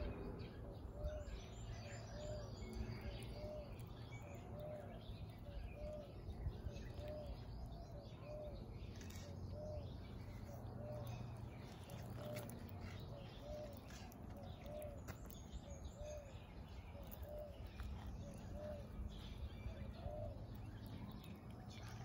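A bird calling outdoors: one short note repeated steadily about once a second, with a few faint high chirps from other birds and a low background rumble.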